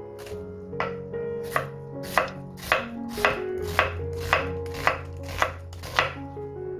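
Chef's knife slicing through an onion and knocking on a wooden cutting board, about ten even strokes at roughly two a second. Soft background music plays under it.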